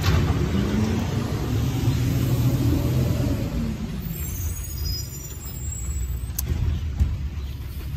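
Garbage truck's engine rumbling as it passes, loudest at first and fading after about four seconds, with a few faint high squeals about halfway through.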